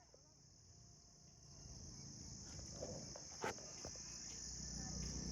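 Steady chorus of insects in the forest, a continuous high buzz that grows louder about a second and a half in, with one sharp click near the middle.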